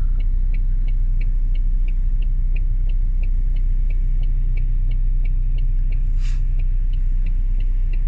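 Car interior at low speed: a steady low engine and road rumble, with a light, regular ticking nearly three times a second and a brief hiss about six seconds in.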